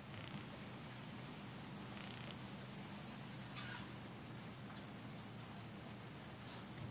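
Insects chirping: a short high chirp repeats evenly about three times a second. A higher, steady hiss runs beneath it and stops about four seconds in.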